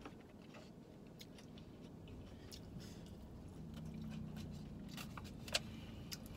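Quiet chewing of food from a takeout burrito bowl, with a few sharp clicks of a fork against the bowl.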